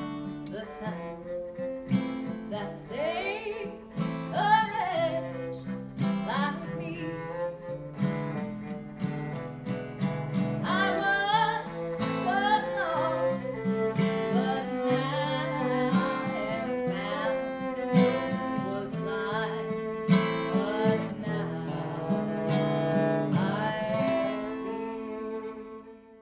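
Acoustic guitar and viola accompanying a singer in a slow song arrangement, with held notes and a wavering voice. The last chord fades out near the end.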